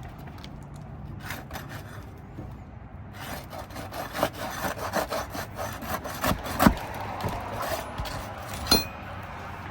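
Roof shingles being pried up and worked loose: irregular scraping and crackling that grows busier about three seconds in, with two sharp cracks near the end. The shingles are brittle and break apart instead of lifting cleanly.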